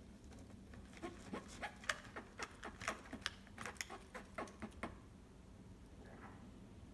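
Small plastic clicks and taps from a toy building-brick gripper arm with plastic gears being worked by hand. The clicks form an irregular run that starts about a second in and stops after about four seconds.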